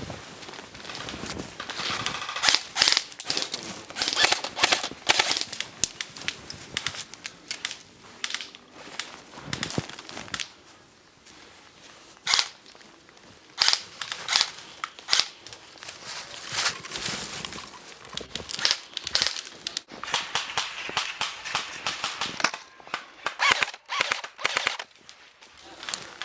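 Airsoft guns firing: repeated bursts and single shots of sharp, dry snaps in rapid clusters, with short pauses between volleys.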